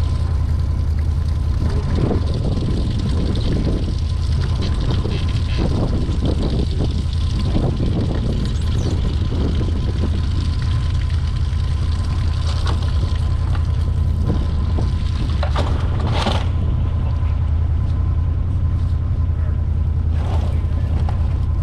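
Steady low rumble with scattered knocks and scrapes from a water heater tank being handled, with one louder knock about sixteen seconds in.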